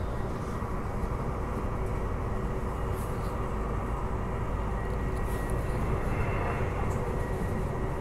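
Transperth B-series electric multiple-unit train running at speed, heard from on board: a steady rumble of wheels on rail under a steady high hum.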